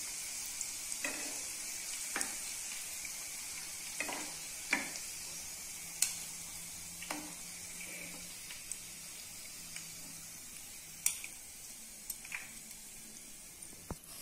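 Breadcrumb-coated chicken donuts frying in hot oil in a pan: a steady sizzle that slowly fades. Scattered light clinks come from a wire spider skimmer touching the pan as the donuts are scooped out.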